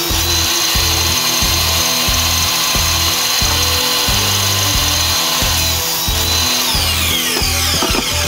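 Table saw running steadily with a high whine. Near the end it is switched off, and the whine falls in pitch as the blade winds down. Background music with a steady beat plays underneath.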